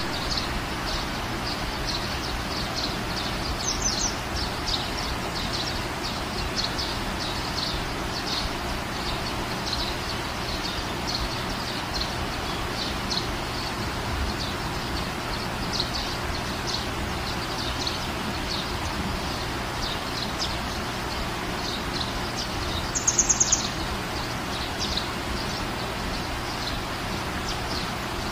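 Small birds chirping repeatedly over steady background noise, with a louder, higher, pulsed call about 23 seconds in.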